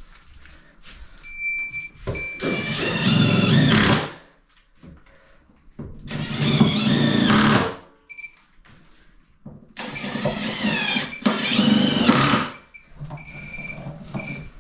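Cordless impact driver driving screws down through floorboards into the joists, in four runs of a second or two each, the pitch of the motor shifting during each run. Every board is being screwed down to stop the floor creaking.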